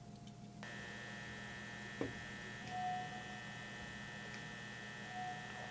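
Steady electrical hum and buzz of fluorescent ceiling lights in the found-footage soundtrack, cutting in suddenly about half a second in, with a few faint short tones over it.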